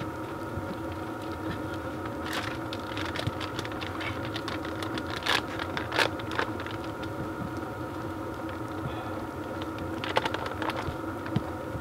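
Steady hum of a running diesel heater, with scattered irregular clicks and taps over it, in a brief cluster near the middle and again near the end.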